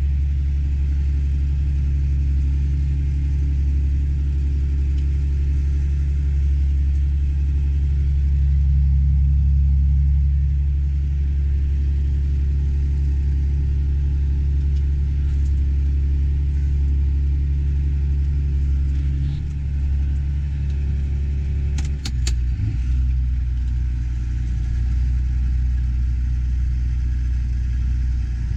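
Tractor engine running with a steady low drone, heard from inside the cab, with a couple of sharp clicks about two-thirds of the way through.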